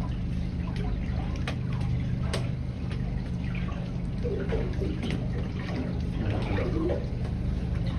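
Water sloshing and splashing against the hull of a small boat, with scattered light splashes and a low, steady hum underneath.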